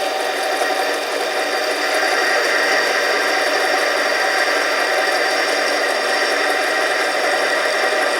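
Harbor Freight 7x10 mini lathe running steadily under power feed, its motor and gear train driving the carriage while the tool takes a cut along an aluminum tube.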